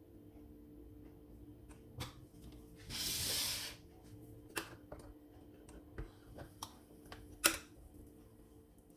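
Light clicks and taps of kitchen utensils being handled, scattered and irregular, with a short hiss lasting under a second about three seconds in, over a faint steady hum.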